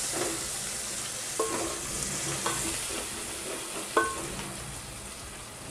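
Onions, ginger-garlic paste, green chillies, coriander leaves and turmeric sizzling in hot oil in an aluminium pot while a spoon stirs them. The spoon knocks against the pot a few times, loudest about four seconds in, and the sizzle slowly dies down toward the end.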